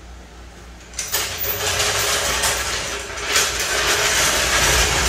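A power tool runs steadily for about four seconds, starting about a second in, as a bolt on the engine mount is taken out.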